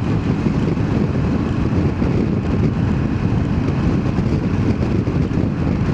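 Triumph Tiger 900 GT Pro motorcycle on the move: its inline-three engine runs steadily under a constant wash of wind and road noise at a helmet-mounted microphone.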